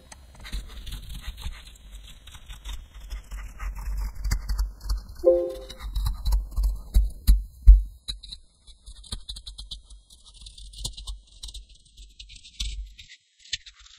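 Computer keyboard typing: quick, irregular key clicks over a low rumble, thinning out in the last couple of seconds.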